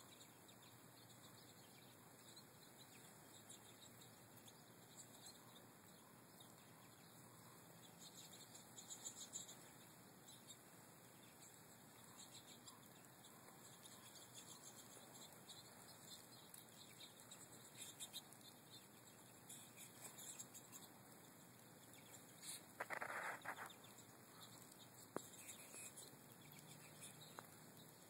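Faint, scattered twittering of American goldfinches over a steady hiss, with a short louder noise near the end.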